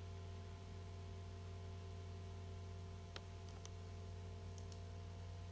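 Steady low electrical hum with two short clicks a little past three seconds in, a computer mouse clicking into a password field.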